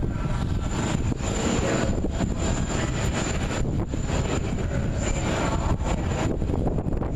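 Jet airliner engines running, a steady rush of engine noise that swells twice, with wind buffeting the microphone.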